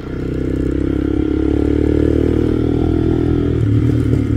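Vento Screamer 250 motorcycle engine running steadily through a loud exhaust, its note turning more uneven near the end.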